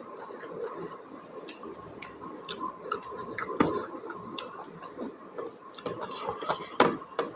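Close-up eating sounds of someone chewing buffalo innards curry: irregular mouth clicks and smacks, with a sharper click about three and a half seconds in and another near the end.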